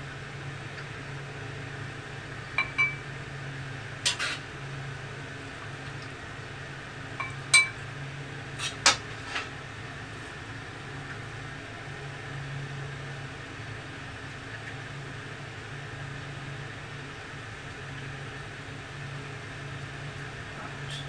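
Metal slotted spatula knocking and clinking against a wok and a ceramic bowl, a handful of sharp clinks in the first half, over a steady low hum.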